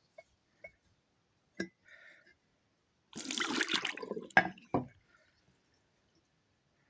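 A short splash of water lasting about a second, followed by two sharp knocks, among a few faint clicks.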